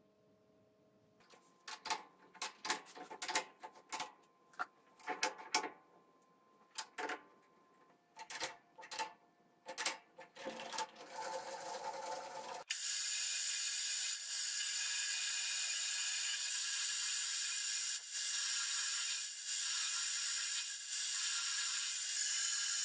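Short metal clicks and knocks as a boring-bar holder is handled and clamped into a lathe's four-way tool post. About halfway through, this gives way abruptly to a metal lathe running steadily, a boring bar cutting inside the spinning workpiece with an even hiss.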